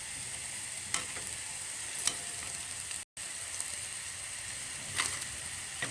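Gram-flour-battered cauliflower deep-frying in hot oil: a steady sizzle, with three sharp taps during it and a momentary dropout about three seconds in.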